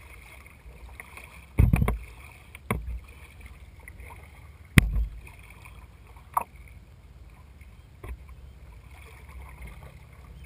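Hollow knocks and thumps on a plastic kayak hull, picked up through the deck-mounted camera: about five separate knocks, the loudest near the start and about halfway, over a faint steady hiss of water and air.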